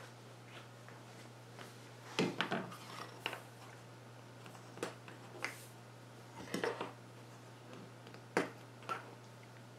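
Small metal alcohol burners being handled on a tabletop: their plastic caps pulled off and the tins moved and set down, giving scattered light clicks and knocks.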